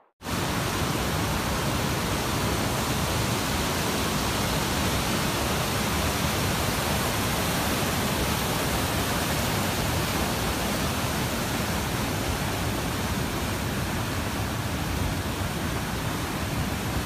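Waterfall: a loud, steady rush of falling water, starting suddenly and cutting off at the end.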